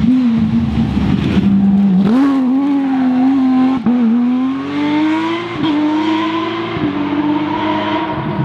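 Porsche 911 rally car's flat-six engine at full throttle, accelerating away and shifting up through the gears: the pitch climbs in each gear and drops at each of four quick upshifts.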